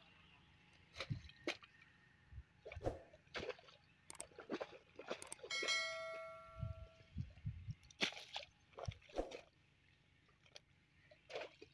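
A hoe blade chopping and dragging through wet mud in an irrigation furrow: a scattering of short knocks and squelches. About six seconds in, a bright bell chime rings for a second and a half.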